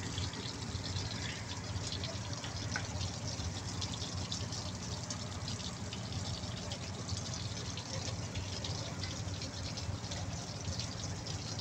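Engine coolant pouring out of a Cummins QST30 diesel genset and splashing steadily into a puddle on the ground, with a steady low hum underneath.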